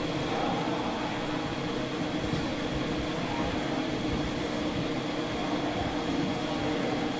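Metal lathe running steadily with its carriage feeding along the bar during a pass cutting a trapezoidal (TR16×4) thread: an even mechanical hum with a few steady tones held throughout.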